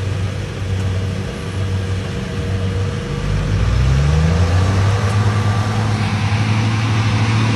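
An engine running steadily. It revs up about three seconds in and keeps running louder at the higher speed.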